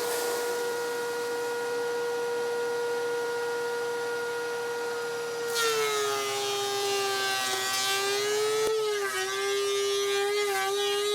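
DeWalt 735X thickness planer running at speed with a steady whine. About halfway through, a board feeds in and the cutterhead starts cutting: the whine drops a little and wavers under the load, joined by a loud rush of planing noise.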